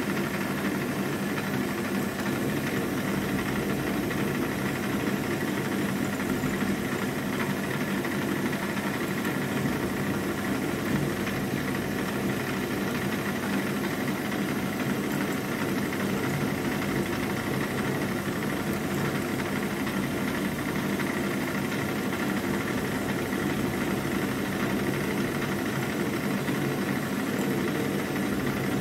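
Milling machine spindle running at about 1600 RPM with a 6 mm carbide end mill rough-cutting a slot in a metal block, a steady machining drone that holds even throughout.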